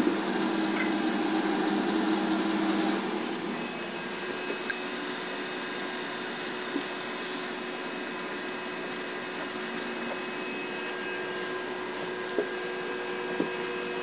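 Steady electric machinery hum with several held tones. A louder, lower whir runs for the first three or so seconds, then drops to a quieter hum with a few faint clicks.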